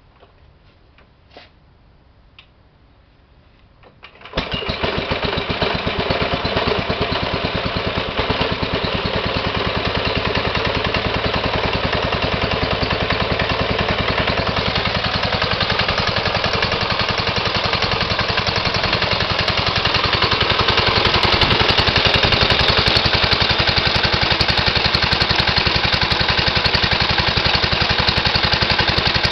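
A few small clicks, then a 1928 Briggs & Stratton Model Q single-cylinder engine catches about four seconds in and runs steadily, with a fast, even firing beat.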